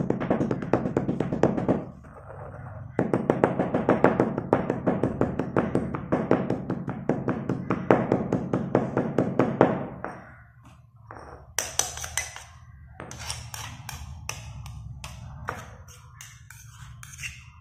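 Slate pencils being crushed and ground with a pestle in a stone mortar: rapid, dense crunching strokes with a short break about two seconds in. From about ten seconds in, as the pieces turn to powder, the strokes become sparser, sharper taps of the pestle in the gritty powder.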